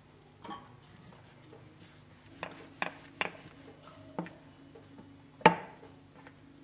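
Wooden rolling pin clicking and knocking against a black iron pan while a ball of dough is rolled out into a roti: a scatter of short light knocks, then one sharp clack near the end as the rolling pin is set down on the pan.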